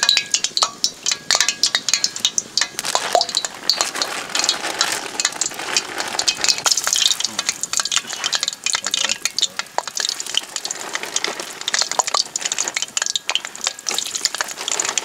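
Chips frying in hot sunflower oil, with a steady crackling sizzle.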